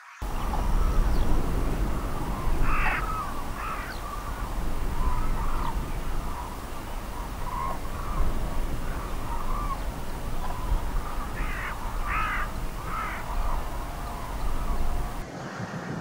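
Northern lapwing calling: short calls in two groups, two about three seconds in and three more about twelve seconds in, over a steady low background rumble.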